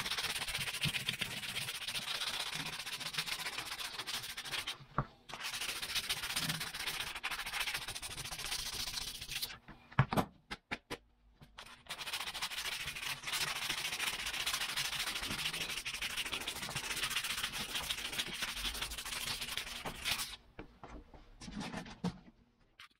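A cloth pad rubbed rapidly back and forth over the steel of an antique Coes adjustable wrench, hand-polishing it, in three long runs. A few sharp knocks about ten seconds in and scattered clicks near the end come from the wrench being handled.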